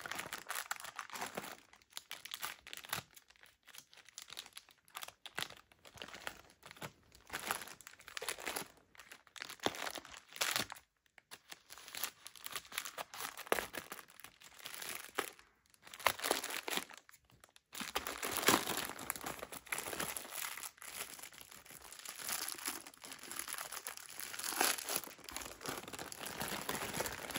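A plastic poly mailer bag crinkling and rustling as it is cut open with scissors, in short irregular bursts with brief pauses. About two-thirds of the way through it turns into steadier crinkling as the bag is pulled open and the plastic-wrapped contents are handled.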